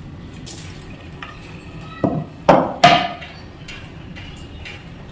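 Kitchen utensils clinking against cookware, with three sharp knocks in quick succession a little after two seconds in, the last one ringing briefly.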